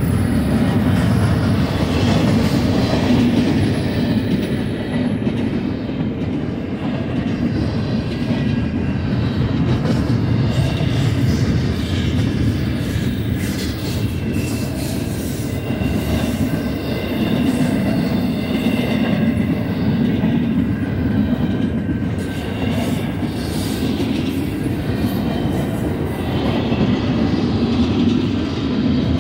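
Double-stack intermodal container well cars of a freight train rolling past at track side, a steady loud rumble with a clatter of wheels over the rail joints.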